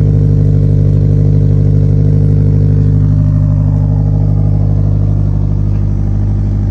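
Engine running steadily on E85 ethanol fuel, its speed easing down slightly about halfway through.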